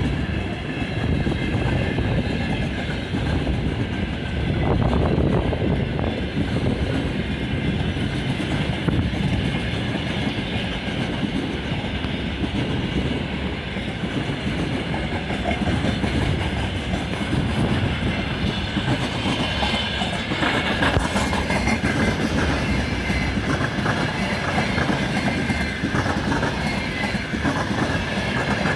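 A freight train hauled by a VL11 electric locomotive rolling past steadily, its wheels clattering over the rail joints. The clicks grow sharper and more frequent from about twenty seconds in.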